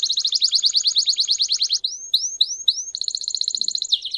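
High, rapid bird-like chirping trill of about a dozen notes a second, broken about halfway by four separate rising chirps, then the trill resumes and ends in a falling sweep: the sound effect of a channel intro.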